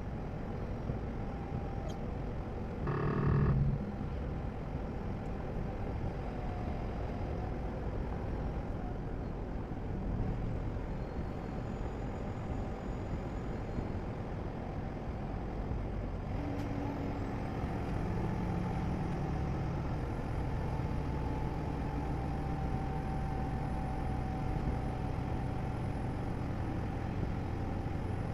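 Steady road and engine noise of a car driving, a continuous low rumble, with a short pitched sound about three seconds in.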